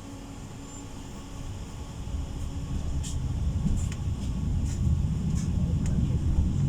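Running noise of a PESA tram heard from inside the passenger cabin: a low rumble that grows louder about two seconds in as the tram gets going, with a few sharp clicks from the wheels and track.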